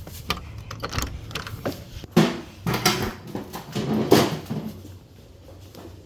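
A run of knocks and clunks from a toolbox being handled, the loudest three about two, three and four seconds in.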